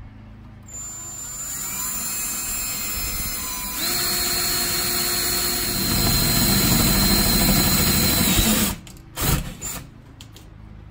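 Ryobi cordless drill with an 8 mm bit drilling through the steel rail of a metal shelf unit. The motor starts slow about a second in, speeds up with a steady whine around four seconds, gets louder as the bit bites from about six seconds, and stops near nine seconds, followed by a couple of short knocks.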